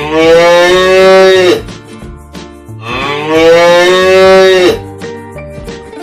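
A cow mooing twice, each moo long and drawn out and dropping in pitch at its end, over light background music.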